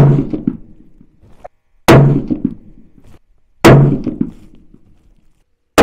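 Scoped centrefire hunting rifle fired from a bench rest: four loud, sharp shots about two seconds apart, the first at the very start and the last at the very end, each ringing out and fading over about a second.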